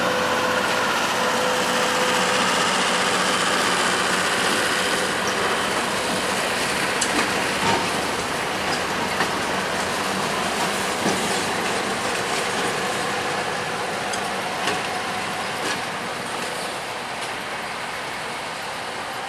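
Passenger cars rolling along jointed track with irregular wheel clicks and thin squealing tones in the first few seconds, and a diesel switcher locomotive's engine running at the rear. The sound fades over the last few seconds as the train moves away.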